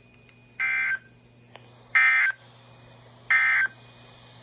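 Emergency Alert System end-of-message signal: three short, buzzy bursts of SAME digital data tones, each about a third of a second long and evenly spaced about 1.3 seconds apart. The bursts mark the end of the spoken alert message.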